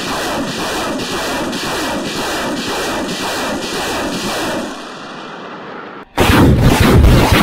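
BM-21 Grad multiple rocket launcher firing a ripple salvo: rockets leave the tubes one after another, about two a second, in a steady string that fades out after about five seconds. Near the end, a sudden louder rushing noise takes over.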